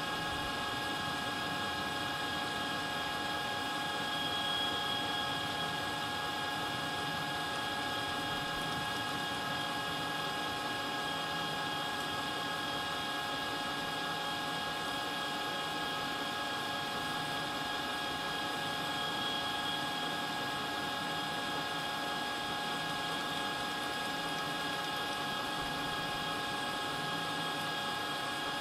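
Metal lathe running steadily, a hum made of several steady tones from the spindle drive and gearing, while a facing tool takes a light, slow-feed cut across the end of the spinning workpiece. The sound swells slightly twice.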